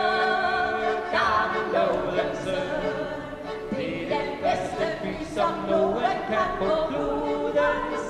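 Fiddle and piano accordion playing a tune together, with held notes changing about once a second.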